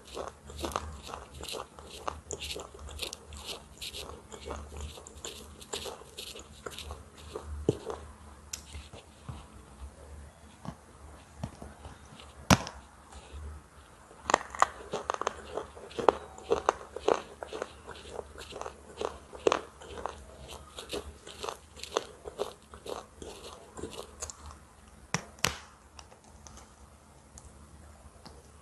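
A person biting and chewing a brittle, layered, bark-like chunk: a run of sharp crunches and crackles, with the sharpest snap about twelve seconds in.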